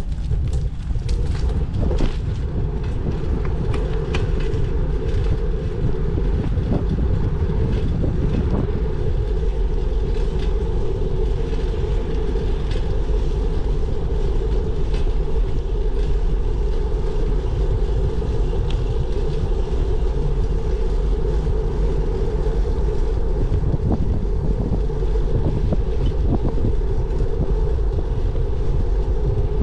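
Steady low rumble of a bicycle on the move, road and wind noise on the microphone, with scattered small clicks and rattles.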